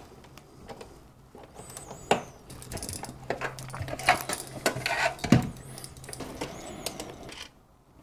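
Small metallic clicks, taps and knocks from a DVR's sheet-metal case being handled and its cover screws worked with a pen-style precision screwdriver, with one sharper knock a little after five seconds. A faint steady low hum runs underneath for most of it.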